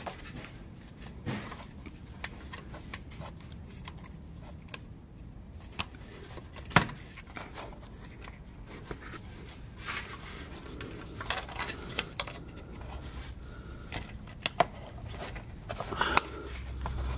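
Irregular small clicks and scrapes of a screwdriver prying at a plastic wiring-harness connector clip under a truck, with a few sharper clicks, while the connector refuses to come unplugged.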